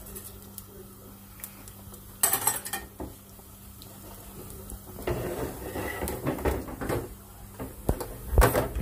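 Metal cookware clanking as a pan is worked on the stove, with a cluster of knocks about two seconds in, more clatter in the second half and a sharp clank near the end. Cumin seeds are sizzling faintly in hot oil underneath.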